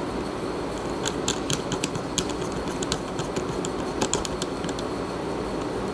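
Small, sharp clicks and ticks of a precision Torx T5 screwdriver turning the M.2 SSD retaining screw in a laptop, scattered irregularly from about a second in, over steady low background noise.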